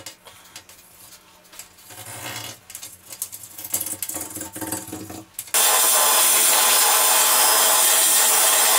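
Hand grout removal tool scraping out the grout between shower tiles in short, irregular strokes. About five and a half seconds in, a loud, steady rushing machine noise starts suddenly and drowns out the scraping.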